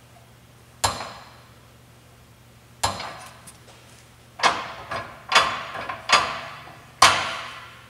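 John Deere planter row unit's steel parallel linkage arms clanking as the row unit is lifted and let drop: a series of single, sharp metal clanks, each ringing out briefly, coming faster from about halfway. There is no second clank, as the arms have no slop with the reamed-in flanged bushings.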